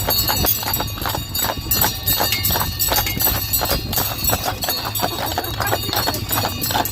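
Horse hooves clopping in a continuous uneven patter as a horse pulls a sleigh, with sleigh bells jingling lightly.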